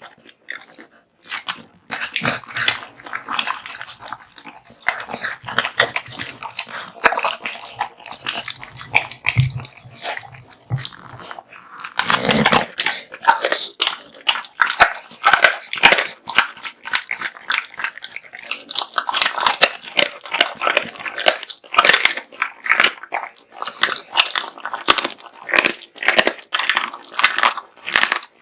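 An American Bully dog eating raw meat and bones: continuous, irregular crunching and chewing, with a louder, deeper bite about twelve seconds in.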